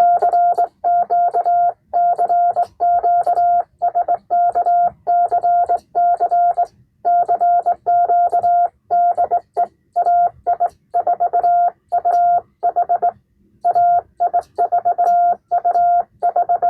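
Morse code sent on a Vibroplex Blue Racer semi-automatic key (bug), heard as a steady beeping sidetone keyed on and off in quick dots and longer dashes, with short pauses between characters and words.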